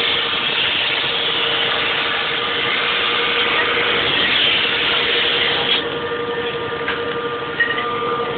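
Ship's machinery running with a steady hum and hiss. The hiss eases a little about six seconds in, and there are a couple of faint knocks near the end.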